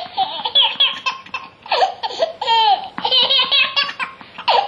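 A baby of about nine months laughing hard in repeated bursts of belly laughter, with a quick run of short laugh pulses a little past the middle.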